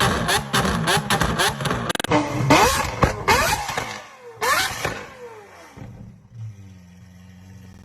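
Lamborghini exhaust revving with rapid crackles and pops, then sharp blips whose pitch rises and falls away. It drops to a quieter, steady idle over the last couple of seconds.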